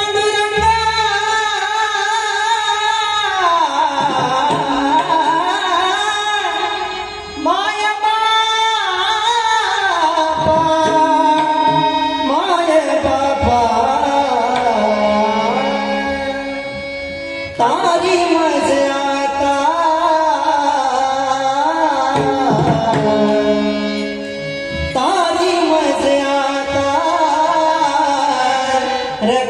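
A male voice singing a Marathi devotional abhang, holding long notes and winding through ornamented melismatic runs over a steady drone and tabla.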